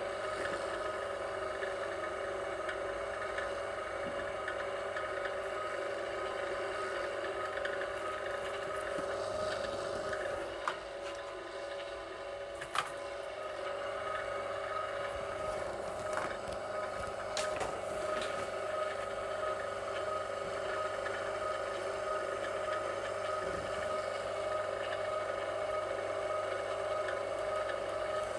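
Electric wire stripping machine's motor running with a steady whine, with a couple of sharp clicks about eleven and thirteen seconds in.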